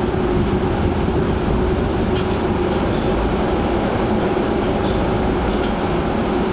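Osaka Subway Shin-20 series electric train running through a tunnel, heard from inside the car: a steady rumble of wheels on rail with a steady hum over it. A couple of faint clicks come through, about two seconds and five and a half seconds in.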